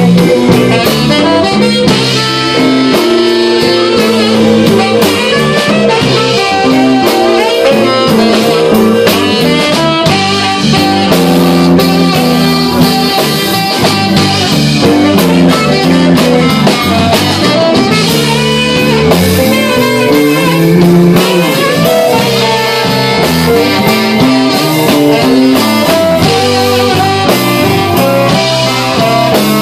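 Live blues band playing a slow blues, the saxophone playing over guitar, bass and drums.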